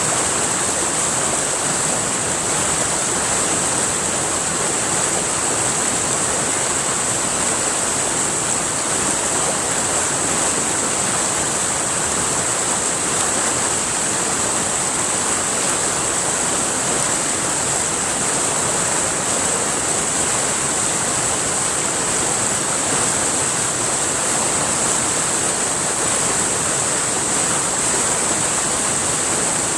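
River water rushing steadily, with a steady high-pitched whine over it.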